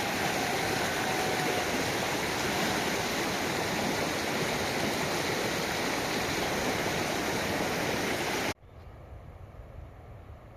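Rushing water of a mountain stream, a loud steady rush that cuts off suddenly about eight and a half seconds in, leaving a much quieter low rumble.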